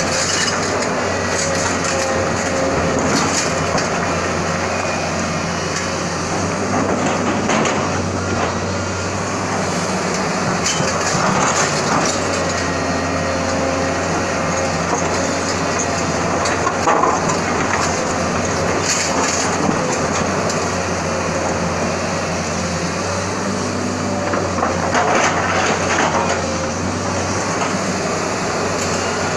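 SANY SY210 hydraulic excavator's diesel engine running steadily under load, with a constant low hum. The bucket grinds and breaks rock at intervals, making a few louder scraping bursts.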